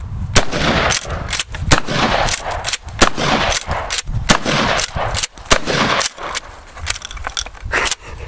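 Gunfire: a fast, uneven string of loud shots, roughly two a second.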